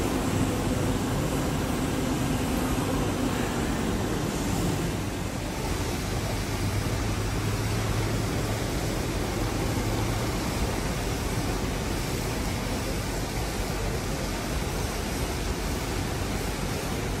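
Steady rushing noise of churning lock water and wind at a ship's bow, with a low machine hum underneath that fades about four seconds in.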